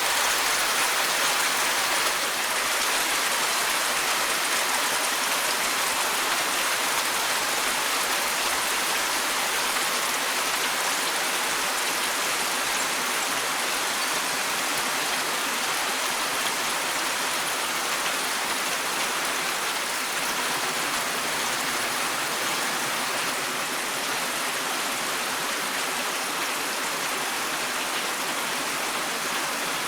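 Steady rain falling, an even hiss of many drops with no single drops standing out.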